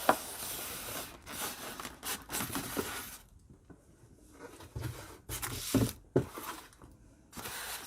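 Cardboard product box being handled and tipped upside down: cardboard scraping and rustling, with a few short knocks in the second half.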